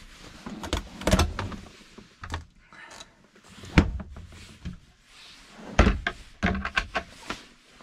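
Door of a small Norcold 12-volt galley refrigerator being handled and pushed shut, with a run of latch clicks and knocks, the sharpest a little under four seconds in. Another sharp knock comes about six seconds in.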